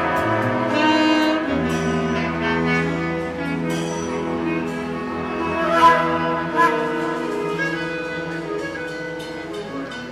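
Live large ensemble of saxophones, trumpet, trombone, flute, clarinet, viola and cello playing sustained chords, growing gradually quieter toward the end.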